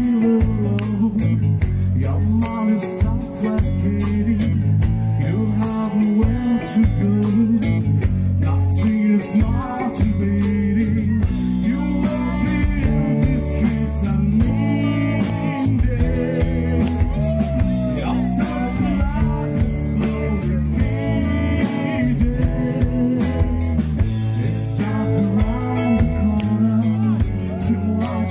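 Live rock band playing: a male singer over electric guitars, bass guitar and drum kit.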